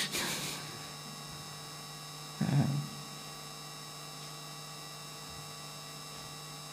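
Steady electrical mains hum through the microphone, with a short breathy noise at the very start and a brief soft low sound about two and a half seconds in.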